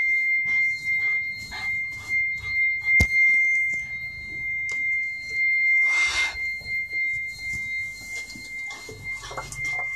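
Alarm panel buzzer sounding one steady, continuous high-pitched tone. Scattered rustles and clicks sound over it, with a sharp click about three seconds in and a brief rustling burst about six seconds in.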